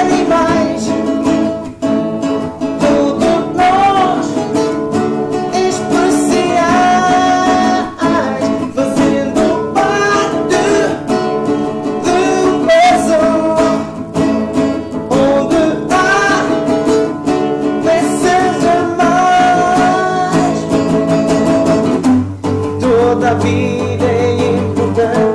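Acoustic guitars strummed in chords under a voice singing a song in Portuguese; the low end fills out about three seconds before the end.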